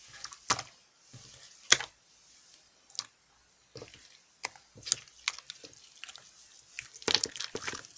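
A series of sharp, crunchy clicks and taps at uneven intervals, coming in a quick cluster near the end.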